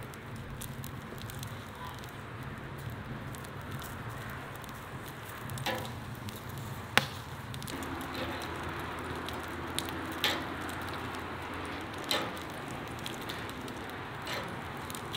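Sausages in natural casing sizzling and crackling on an oiled grill grate over a fire, with about five sharp pops, the loudest about halfway through.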